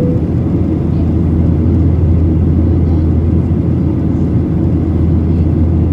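Steady low cabin noise of a Boeing 737-800 in climb, heard inside the cabin over the right wing: the drone of its two CFM56-7B engines mixed with airflow rush, unchanging throughout.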